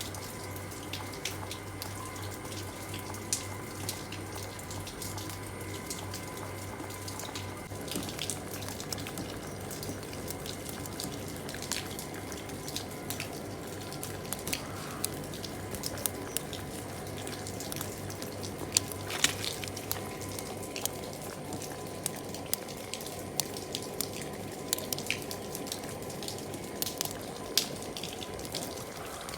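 Steady rain falling, with many scattered drops and drips striking close by.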